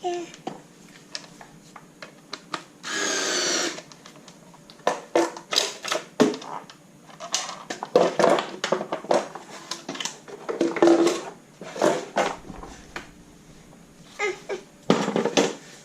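A Ryobi QuickTurn electric screwdriver's motor runs for about a second, about three seconds in. It is followed by a long run of short, sharp clicks and knocks.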